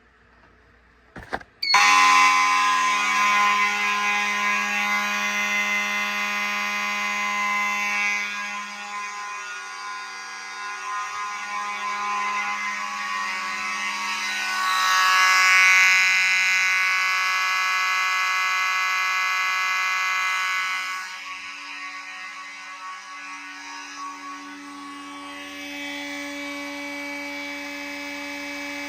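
Fire alarm horns sounding a continuous steady alarm after the system is set off, a stack of buzzy tones that starts about two seconds in. It grows louder around the middle and drops back somewhat later on.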